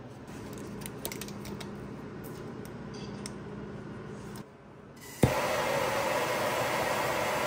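Workshop sounds: a low hum with scattered small clicks and taps, then about five seconds in a sharp knock, followed by a loud steady rushing hiss from a running shop tool.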